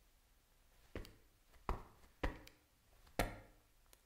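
A few sharp knocks, irregularly spaced, about four loud ones with fainter ticks between, each dying away quickly in a small room.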